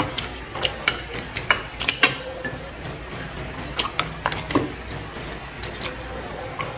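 Eating sounds: a metal fork and spoon clinking and scraping in plastic food containers, with chewing and mouth sounds from biting into grilled chicken. The clicks come at irregular moments, a dozen or so.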